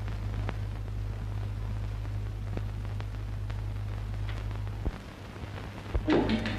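Steady low hum and hiss of an old film soundtrack, with a few faint clicks, dipping briefly around five seconds in. Music with drums and wood-block percussion comes in near the end.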